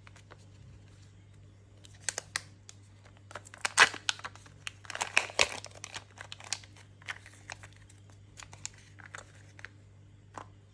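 Foil seal peeled off the plastic toy capsule of a Kinder Joy egg and the paper-wrapped toy pulled out, with crinkling and tearing, loudest about four and five seconds in, followed by scattered light plastic clicks.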